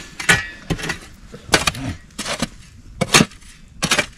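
A shovel digging into stony soil, its blade scraping and striking six times at an uneven pace of about one stroke every three-quarters of a second.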